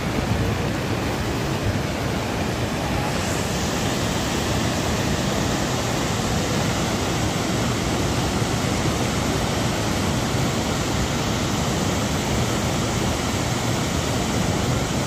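Steady, unbroken rushing roar of the Tincha waterfall in full flood, swollen by days of heavy rain.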